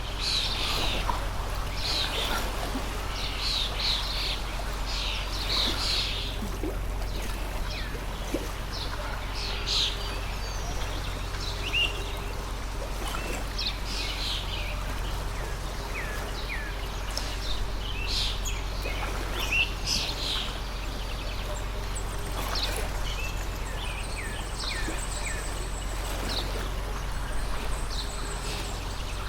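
Water stream flowing steadily while songbirds chirp throughout, a string of short calls and quick sweeps one after another.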